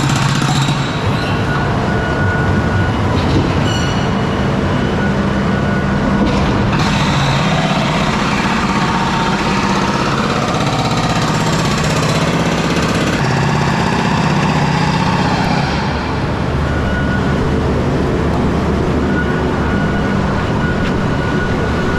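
Dump truck's diesel engine running, heard from inside the cab, with its pitch shifting up and down in the middle as the truck is driven.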